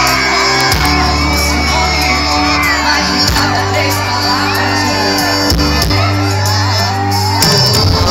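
Live sertanejo band music played loud over a concert sound system, with held bass and keyboard chords that change every second or two, and an audience shouting and singing along.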